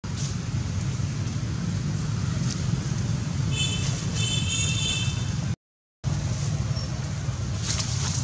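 Steady low rumble under a stretch of high-pitched squealing from a young monkey, about three and a half seconds in, lasting about a second. The sound cuts out briefly just before six seconds in.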